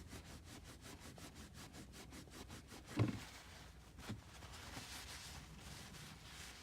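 Paper towel wet with rubbing alcohol rubbing back and forth over a car's manual shift knob, quick even strokes about five a second that die away after about three seconds. A dull knock comes about three seconds in, and a softer one a second later.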